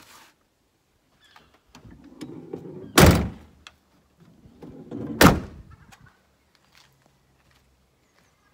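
The two rear doors of a Mercedes Sprinter camper van slammed shut one after the other: two heavy thuds about two seconds apart, each after a short low rumble as the door swings.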